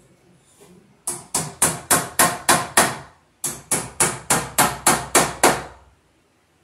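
Hammer striking in two quick runs of blows, about three or four a second, with a short pause between, tapping cable staples into a wooden wall stud to hold the electrical cable.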